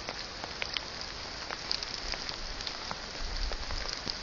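Steady outdoor hiss scattered with many faint ticks, like light rain pattering on foliage.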